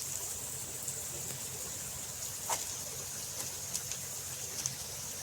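Emu pecking at feed: a few scattered sharp clicks over a steady high-pitched hiss.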